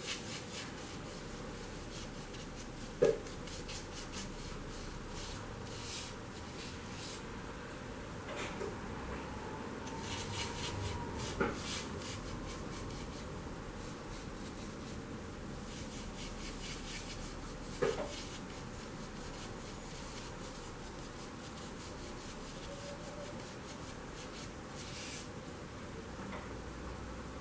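Small paintbrush scrubbing and swirling paint on a plastic palette, mixing blue into green: a faint brushing rasp that comes and goes, with three short sharp taps spread through.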